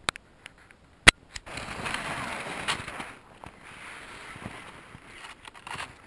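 A sharp click about a second in, then skis and poles swishing and crunching through snow as a skier moves along.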